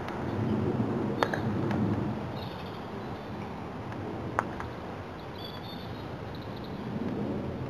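Two sharp knocks of a croquet mallet striking a ball, about three seconds apart, over a steady low rumble, with birds chirping faintly.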